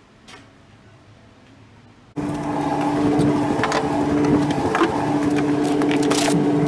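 Faint room tone, then about two seconds in a cordless drill starts and runs with a steady whine, with wooden knocks and scrapes as it works on the stud framing of a wall being taken down.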